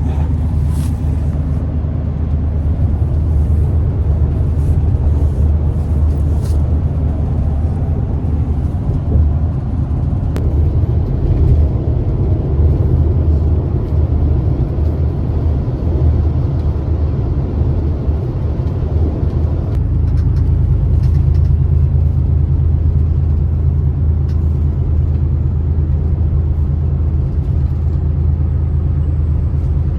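A road vehicle travelling, its engine and road noise making a loud, steady low rumble.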